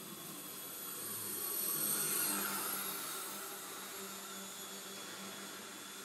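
Small radio-controlled model warplane's electric motor and propeller whining as it flies past, swelling to a peak about two seconds in and then fading.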